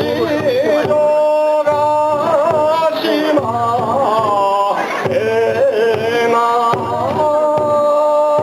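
Music: a singing voice holding long, wavering notes over a steady low beat.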